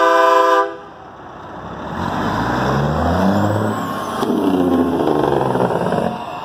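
A semi truck's air horn is held and cuts off just under a second in. Then the diesel engine of a lit-up semi tractor passing close by takes over, its pitch rising twice as it pulls past.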